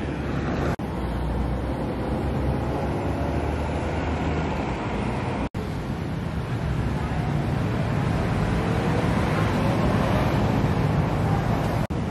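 Steady road traffic noise of passing vehicles, with a low rumble. The sound drops out for an instant three times.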